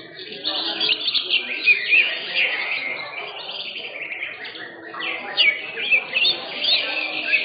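Green leafbirds (cucak hijau) singing a fast, busy run of chirps, trills and whistled slides. The song comes in two busy stretches with a lull around the middle.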